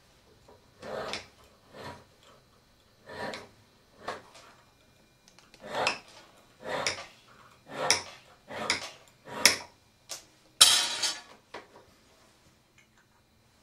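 Hand file being worked back and forth over a small piece held against a jeweller's bench pin: about a dozen separate rasping strokes, roughly one a second, getting louder in the second half, with the loudest and sharpest stroke about eleven seconds in.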